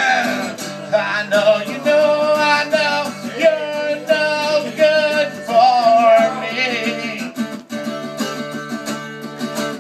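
Acoustic guitar strummed while a man sings over it. The singing drops out about seven seconds in, leaving the guitar alone.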